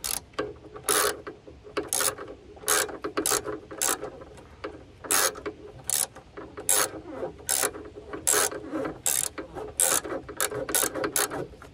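Socket ratchet clicking in short quick strokes, about two a second, driving a bolt back in.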